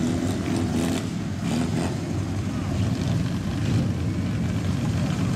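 Deep, loud exhaust rumble of a lowered, straight-piped old Japanese sedan rolling slowly past at low revs, steady throughout.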